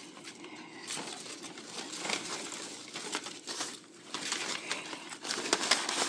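Shredded newspaper and wrapping-paper packing crinkling and rustling as a hand digs into a cardboard shipping box and lifts out a potted plant, with irregular small crackles throughout.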